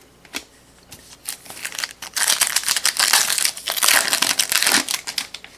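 Wrapper of a football trading-card pack crinkling as it is torn open: a few light clicks, then about three seconds of dense crinkling.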